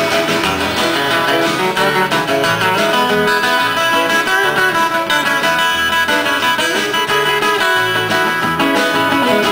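Live band playing an instrumental passage, led by strummed acoustic guitars.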